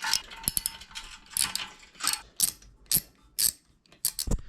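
Ratchet wrench with a 12 mm socket loosening the exhaust header bolts on a Kawasaki Z125 motorcycle. It clicks in short runs, roughly two a second, one for each return swing of the handle.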